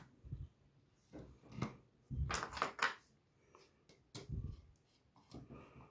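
Handling sounds of plastic gears, a metal rod and wooden pieces being fitted on a wooden base: a handful of short knocks, clicks and scrapes, the loudest a little over two seconds in.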